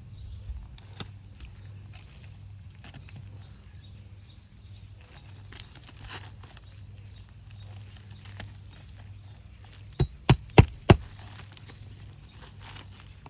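Light scraping and small knocks of an asphalt shingle being handled, then four quick hammer blows about ten seconds in, driving a roofing nail back through the shingle.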